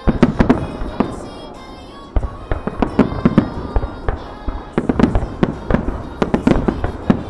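Aerial firework shells bursting in quick succession: a cluster of sharp bangs at the start, then a dense barrage of bursts from about two seconds in. DJ music from the show plays underneath.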